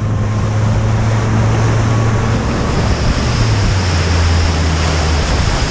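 Boat motor running at speed, with the hull's spray and rushing water loud over a steady low engine hum; the hum drops a little in pitch about three seconds in.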